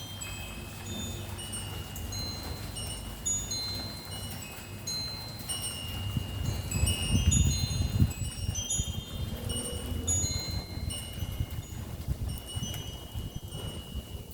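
Wind chime tinkling in a breeze: many overlapping high, ringing notes struck at irregular moments. Under it is a low rumble that swells around the middle.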